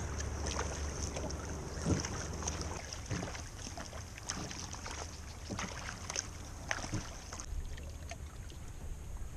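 Kayak paddle blades dipping and pulling through the water, with short splashes and drips every second or so, over steady water lapping and a low rumble of wind.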